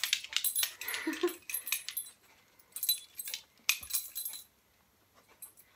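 Kelpie sniffing and nosing at a towel on the floor: a run of short sniffs and rustles, with a brief low sound from the dog about a second in, stopping about four and a half seconds in.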